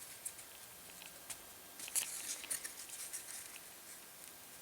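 Light, scattered clicks and small scrapes of thin laser-cut wooden pieces being handled and pressed together by hand, a little busier about two seconds in.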